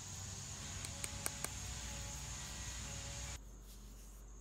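Quiet background hiss with a thin, steady high-pitched whine, and a few faint light clicks about a second in as the bike light is handled. The background drops quieter suddenly near the end.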